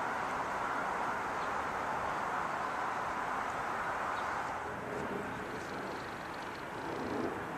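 Steady outdoor background noise: an even rush with no distinct events, dipping slightly in level a little past the middle.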